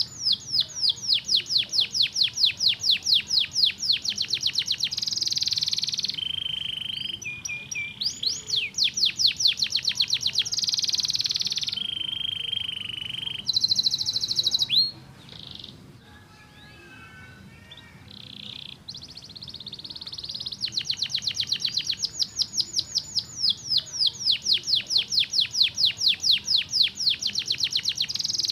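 Domestic canary singing: long rapid trills of repeated rising notes, held whistled tones and short buzzy phrases. There is a softer, quieter passage in the middle before the fast trills return.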